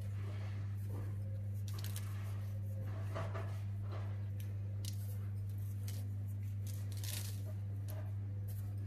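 Sesame seeds sprinkled by hand onto egg-washed dough and baking paper: faint scattered patters and light rustles, over a steady low hum.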